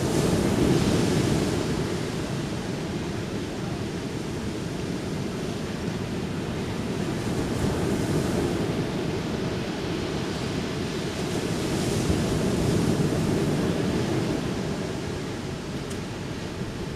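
Ocean waves breaking and washing up a beach, a steady surf that swells louder about a second in and again about twelve seconds in.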